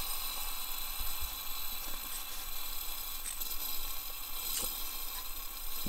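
A lighter being worked at the burner of a liquid-fuel backpacking stove: a few faint clicks and scrapes over a steady faint hiss. A single sharp click comes at the very end.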